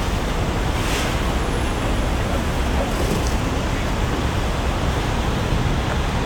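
Steady busy-street noise of road traffic, with a short click about a second in.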